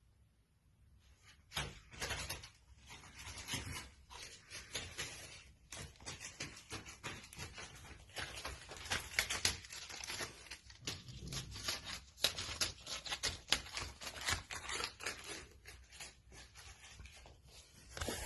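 Dense, irregular scratching, rustling and tapping, starting about a second and a half in, with sharper clicks scattered through it.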